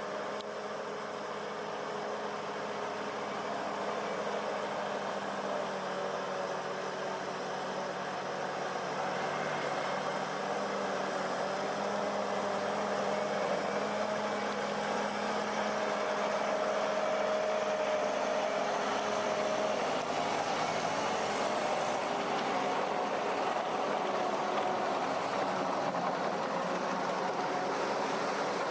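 Heavy-equipment engine running steadily, gradually getting louder.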